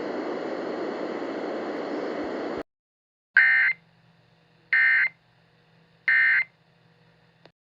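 Steady radio static that cuts off suddenly, then three short bursts of Emergency Alert System digital data tones about 1.4 s apart: the end-of-message code that closes an EAS alert.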